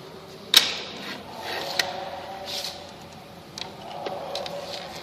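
Plastic parts of a Canon imageRUNNER copier's drum unit being handled and fitted together: a sharp click about half a second in, the loudest sound, then a lighter click about a second later, with soft handling noise between.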